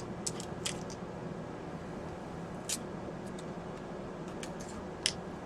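Faint food-prep handling sounds: a few short, sharp clicks and crinkles over a steady low room hum.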